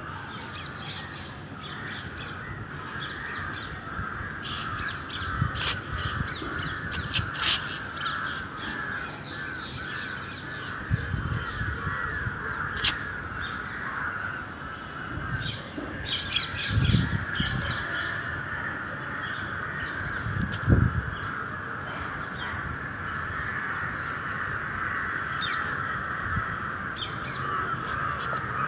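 An insect making a continuous raspy buzz, with scattered sharp clicks. A few low thumps come in partway through.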